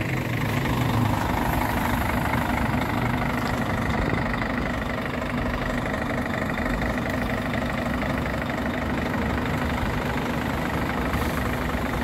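Diesel engine of a Kia Granbird tour coach idling steadily, heard close to the bus.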